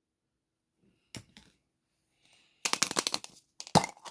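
Packaging crackling and clicking as the next surprise egg is unwrapped: two short clicks about a second in, then a burst of rapid crackling near the end.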